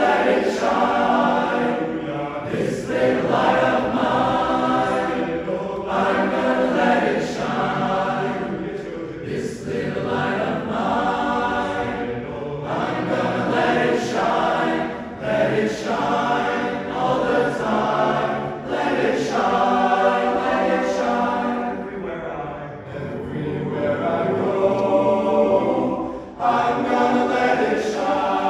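A choir singing in sustained phrases, with brief pauses between them.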